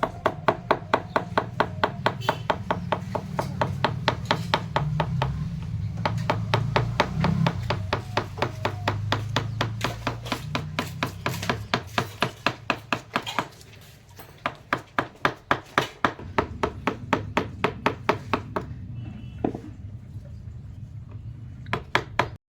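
Rapid, evenly spaced blows on wood, about three to four a second, as from a hammer or mallet working a wooden piece, with a short pause about halfway through. A low hum sits under the first half.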